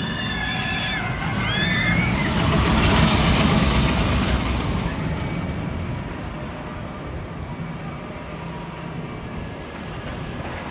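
Expedition Everest roller coaster train rushing down the drop out of the mountain, with riders screaming during the first couple of seconds. The rumble swells to its loudest about three seconds in, then fades.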